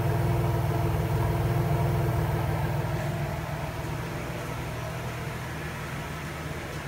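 1995 Pontiac Firebird's 3.4-litre V6 idling, its exhaust note heard at the rear of the car. The rumble eases down somewhat after about three seconds.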